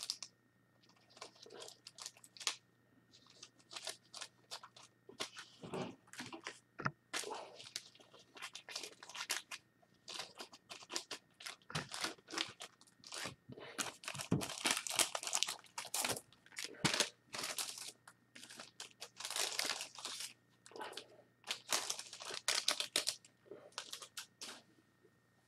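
Irregular crinkling, crunching and rustling close to the microphone, like plastic or paper being handled, coming in short clusters that grow busier in the second half.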